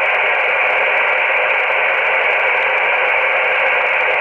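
Icom IC-718 HF transceiver receiving on 60-metre upper sideband with no station transmitting: a steady hiss of band noise, narrowed by the receiver's voice filter.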